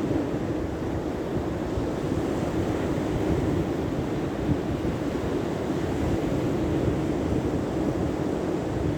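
Wind blowing across the microphone: a steady, low rushing rumble.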